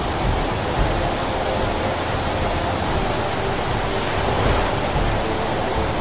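A large surge of floodwater breaking against and over a concrete riverside wall: a steady rush of churning, crashing water.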